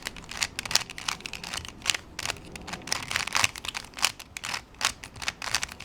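Plastic twisty-puzzle cube being turned by hand: a rapid, irregular series of clicks and clacks as its layers are rotated.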